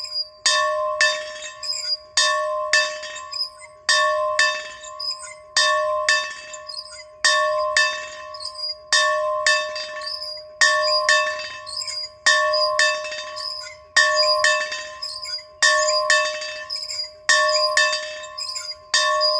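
A bell rung over and over, its clapper striking in quick pairs about every one and a half to two seconds. Each strike rings on with a clear tone and bright overtones into the next.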